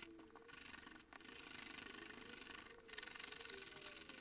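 Faint, quick rubbing of 1000-grit abrasive paper on the copper face of a blank circuit board, with a couple of brief pauses; the copper is being scuffed smooth and bright so the toner will stick.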